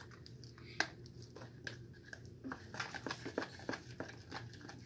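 Faint handling noises of slime-making: scattered soft clicks and crinkles from a plastic tube and containers as toothpaste is added, with one sharper click about a second in and quicker small ticks in the second half.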